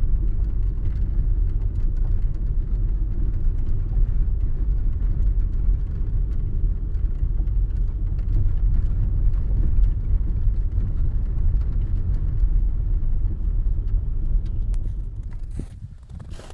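Car driving along a gravel forest track, heard from inside the cabin: a steady low rumble of tyres and engine with faint scattered ticks. The rumble drops away about a second before the end.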